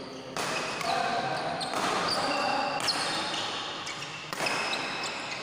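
Play on an indoor badminton court: a few sharp knocks and shoe squeaks on the court floor ring through the hall, with some voices.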